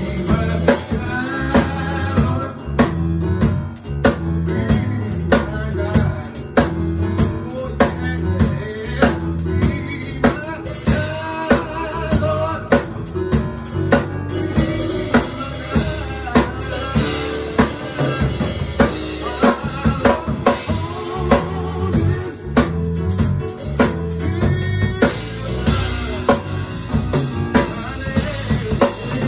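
Live blues and gospel music: a Yamaha MM8 keyboard played over drums keeping a steady beat, with a man singing.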